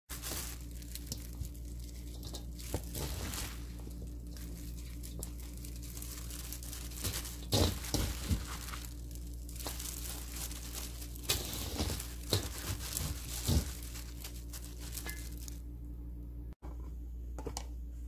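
A hand in a disposable plastic glove tossing garlic chives and sliced onion with red chilli seasoning: the glove crinkles and the wet vegetables rustle and squish in irregular handfuls, with a few louder rustles around the middle.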